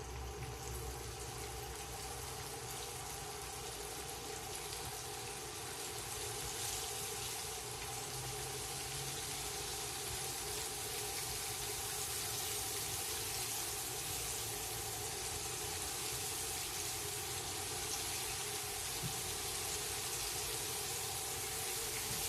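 Breaded fish frying in hot peanut oil in a cast iron pan: a steady sizzling hiss that grows slightly louder over the first ten seconds or so.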